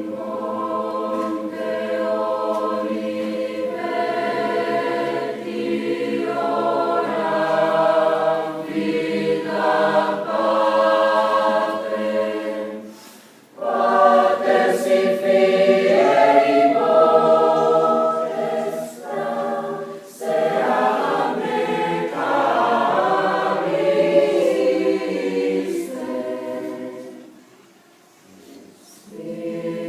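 A choir singing in several voice parts, with a short break about halfway through and the sound dying away near the end before the voices come back in.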